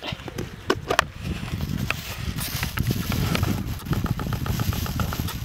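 Low rumbling wind noise on the microphone, with a few sharp clicks in the first second and a quick, even run of soft ticks about four seconds in.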